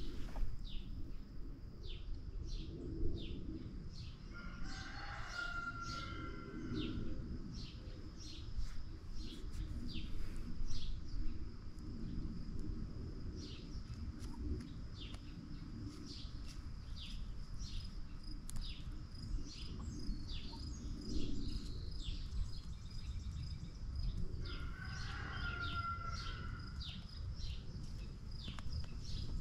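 Backyard chickens clucking softly, with many short high chirps from small birds and a steady high insect trill. Twice, about five seconds in and again near the end, a louder clear call stands out.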